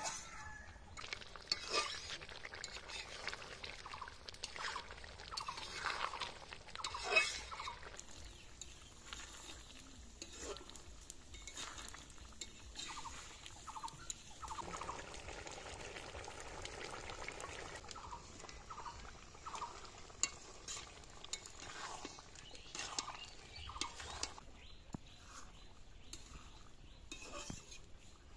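A metal spatula stirring and scraping chicken and carrots in an iron kadai, with a low sizzle of frying and occasional sharp clicks.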